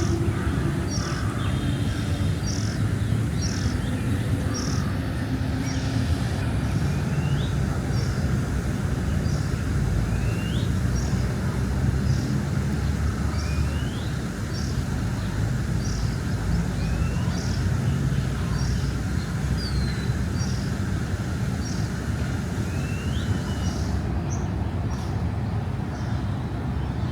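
Steady low rumble of city traffic with birds calling over it. One call is a short high note repeated about once a second; another is a rising whistled note every two to three seconds.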